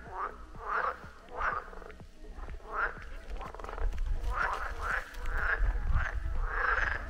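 Pond frogs croaking in chorus, short calls repeating about twice a second, over a low rumble.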